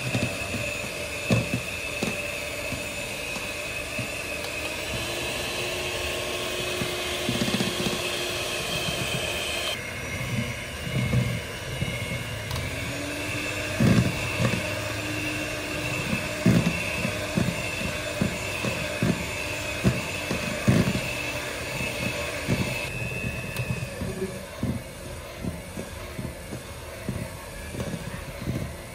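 A small electric motor running with a steady whine, with irregular knocks and clatters over it.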